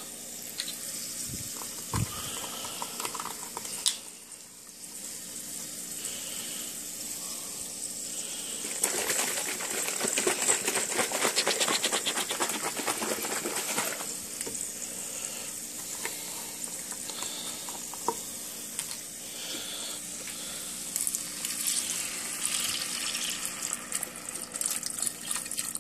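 Chicken broth poured from a carton into a pot of vegetables cooking in butter: liquid pouring and splashing, loudest for about five seconds in the middle.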